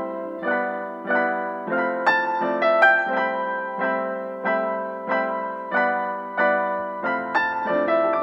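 Background piano music: gentle struck chords and melody notes, each fading before the next about every half-second.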